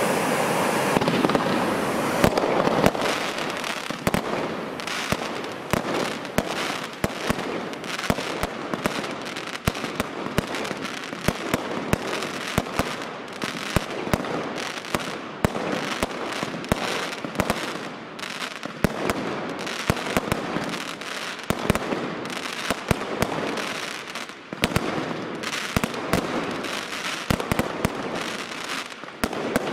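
Firework fountains hissing for the first two or three seconds, then aerial fireworks going off overhead: a dense run of sharp bangs and crackles from bursting stars, several a second.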